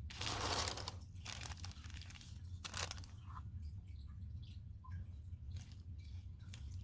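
Crinkly, scraping handling noise as the last of a tube of yellow acrylic paint is squeezed out and worked onto the canvas: a longer rustle in the first second, then scattered short scrapes and clicks over a steady low hum.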